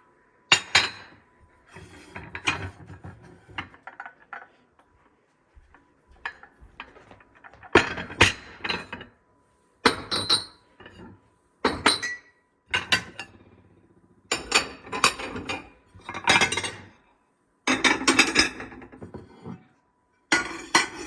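Dishes clinking and knocking together as they are taken out of a dishwasher and set down in a cabinet, in about ten separate bursts of clinks.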